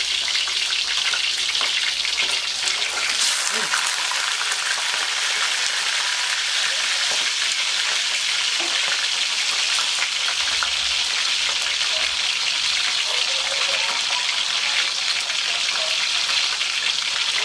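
Whole grouper frying in hot olive oil in a wok: a steady, dense sizzle with fine crackles of spitting oil, and a brief louder burst about three seconds in.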